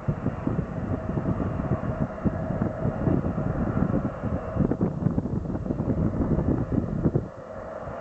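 Airliner engines running with a steady high tone, under heavy wind buffeting on the microphone; the buffeting dips briefly near the end.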